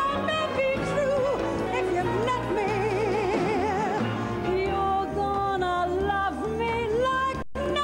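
A woman's soprano voice singing long held notes with wide vibrato over orchestral accompaniment. The sound drops out completely for a split second near the end.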